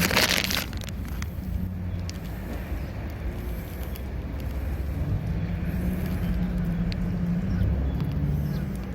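Steady low rumbling hum of outdoor background noise, with a brief rush of noise right at the start.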